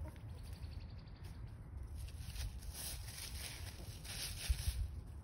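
Chickens scratching through dry fallen leaves, the leaves rustling and crackling in short spells that grow busier toward the end, over a low steady rumble.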